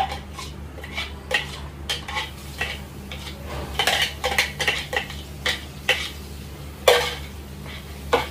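A metal spoon clinking and scraping against bowls as chopped vegetables are scraped into dosa batter and stirred through it. The clinks are irregular, one or two a second, with a sharper clink near the end.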